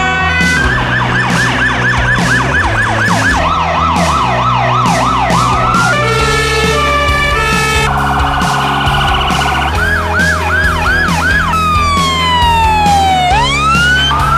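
Emergency vehicle sirens cut one after another: a two-tone, fast yelps, slower wails and a long falling then rising wail, each pattern lasting a second or two, over background music with a steady beat.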